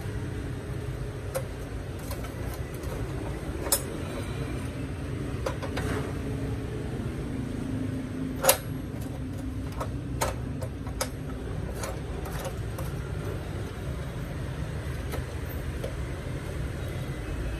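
Sharp metal clicks and clanks from a steel pipe being handled and fitted into a cut-off saw's quick-release vise, the loudest knock a little past halfway. Under them runs a steady low background rumble.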